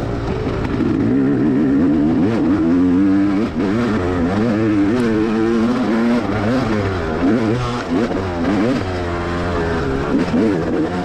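Dirt bike engine racing, its revs rising and falling again and again as the throttle is worked over rough, rutted ground.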